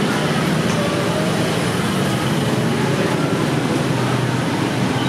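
Steady city street ambience: motor traffic, including motorbikes, running past on the road beside the walkway.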